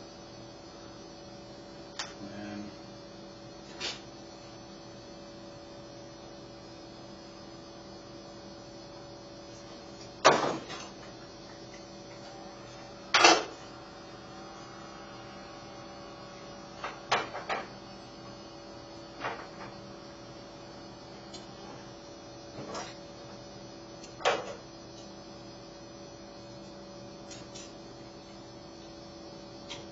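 Scattered clicks and knocks of a screwdriver, plug body and wires being handled while a 250-volt 50-amp plug is wired up, the two loudest about a third of the way in and just before halfway. A steady electrical hum runs underneath.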